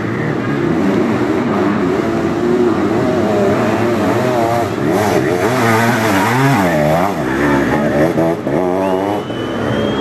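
Several sidecar motocross outfits' engines revving hard, their pitch swinging up and down through gear changes and throttle, with one outfit's engine dropping and rising sharply past the middle.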